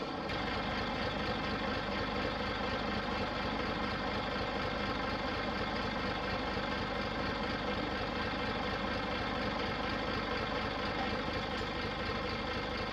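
Nissan Diesel city bus with a Fuji Heavy Industries 7E body standing with its diesel engine idling steadily, with an even low pulse.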